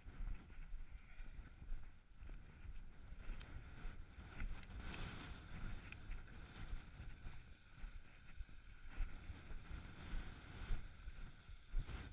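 Mountain bike rolling over a rocky gravel trail: a low, gusty rumble of wind buffeting the camera microphone mixed with the rattle of tyres on loose stones, broken by a few sharp knocks from the bike jolting over rocks near the end.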